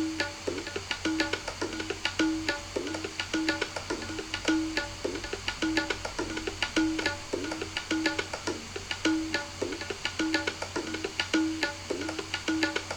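Recording of an Indian classical hand drum playing a steady rhythmic pattern of pitched strokes, some gliding down in pitch.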